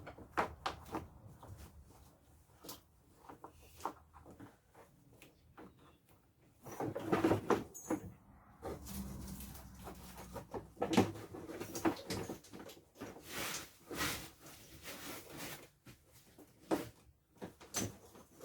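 Irregular knocks, clicks and scraping rustles of wiring being fished through a side-by-side's firewall and centre console, the wires rubbing and bumping against the panels. The handling is busiest about seven seconds in and again a few seconds later.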